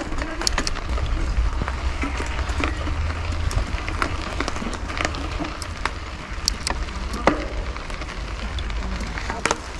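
Wind buffeting the microphone in a steady low rumble while riding a bicycle, with scattered sharp clicks and crackles from the rough track.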